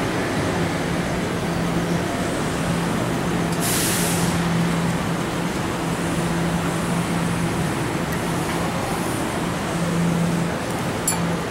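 Taiwan Railways EMU700 electric train standing at the platform, its equipment giving a steady low hum that drops out and returns, over a general rumble. A short hiss of air sounds about four seconds in.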